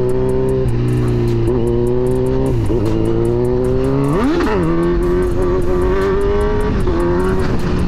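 Kawasaki Z900's inline-four engine running under way, its pitch dipping briefly a few times and then rising sharply and falling back about four seconds in, as the throttle is blipped.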